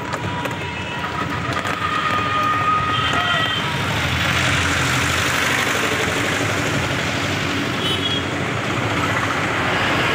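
Street and road noise heard from inside a moving open-sided rickshaw: a steady rushing rumble that grows louder about two seconds in. A few short high tones sound over it.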